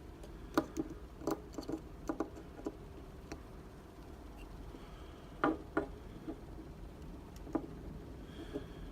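Small sharp metal clicks and taps of tools working at a circlip on a Medeco lock cylinder, coming irregularly, with clusters in the first three seconds and a few more later.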